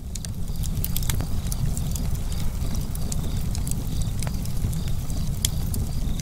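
Log fire burning: a steady low roar of flames with irregular sharp crackles and pops from the burning wood.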